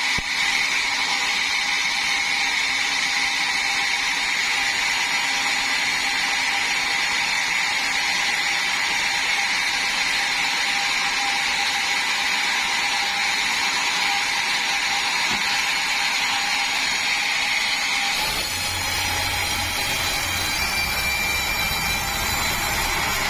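Sawmill saw machinery running steadily with a high, sustained whine. About 18 seconds in the sound changes and a low rumble joins.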